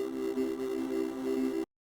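Electronic synthesizer sounding a chord of several steady tones, which stops dead about a second and a half in, followed by complete silence.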